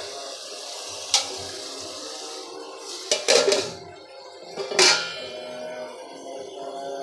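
Metal lid clattering onto an aluminium cooking pot: a sharp knock about a second in, a cluster of clatters around three seconds, and a loud clang that rings on near five seconds. Background music plays underneath.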